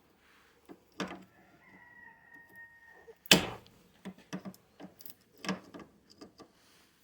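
A rooster crowing in the background for about a second and a half, among a series of sharp clicks and snaps. The loudest snap comes about three seconds in, and several lighter clicks follow.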